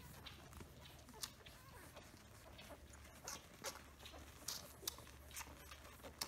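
Newborn Samoyed puppies suckling at their mother: faint, irregular wet smacking and clicking from their mouths, over a low steady hum.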